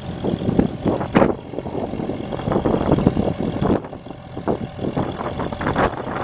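Vermeer RT650 trencher's 76 hp Deutz diesel engine running, with uneven, gusty noise over it.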